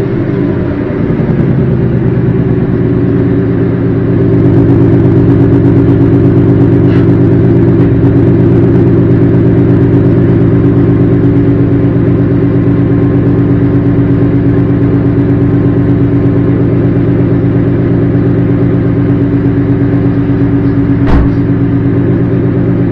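Replacement 3rd-gen Coyote 5.0 V8 in a Ford Mustang GT idling steadily after its first oil change, with no tapping that the owner notices: to him it sounds absolutely beautiful. One brief knock near the end.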